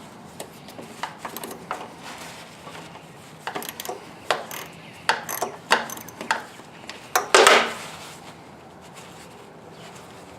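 A socket ratchet removing the bolt from a mower carburetor's float bowl: scattered clicks and short metal scrapes, the loudest a half-second rasp about seven seconds in.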